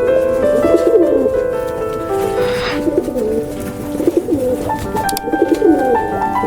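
Pigeons cooing again and again in short rolling phrases, over background music.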